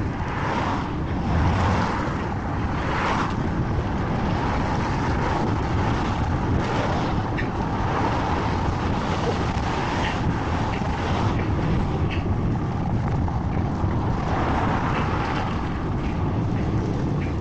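Steady wind noise on the microphone of a moving bicycle, over the hiss of car tyres on a wet road. Several cars swell past one after another.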